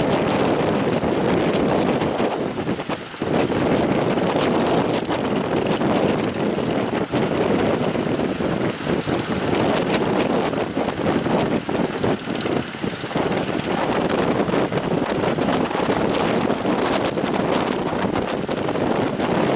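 A speedboat's outboard engine running under way, mixed with strong wind buffeting the microphone; the noise is loud and steady, with brief dips.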